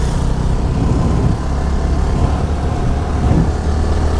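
Yamaha R15 V3's single-cylinder engine running steadily while riding, a continuous low hum under wind and road noise.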